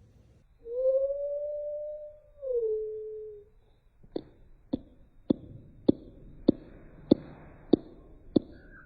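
A long, pitched, howl-like animal call that holds steady and then drops in pitch for a moment before it ends. After a short gap come eight sharp, evenly spaced clicks, roughly one every two-thirds of a second.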